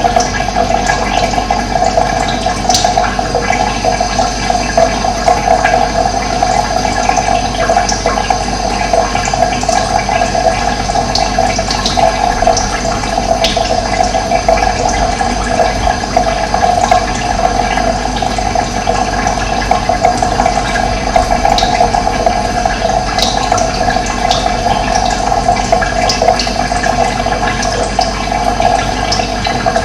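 Steady rushing of running water with no pauses, with a few brief, faint bird chirps here and there above it.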